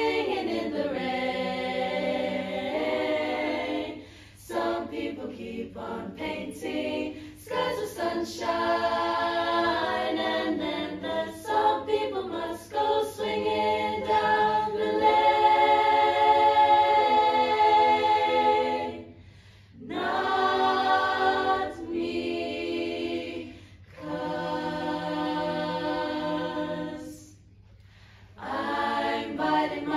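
Girls' barbershop chorus singing a cappella in close harmony, holding chords phrase by phrase with short breaks between phrases.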